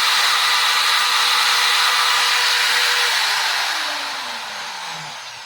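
Power drill spinning a rusty bolt against a steel wire brush: a steady, hissy whir as the wire scrubs rust off the bolt. About three seconds in the drill is let go and winds down, its pitch falling as it fades.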